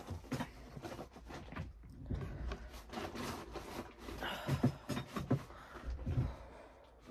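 Rustling, scraping and knocking of objects being handled close to the microphone, an irregular run of small clicks and scuffs.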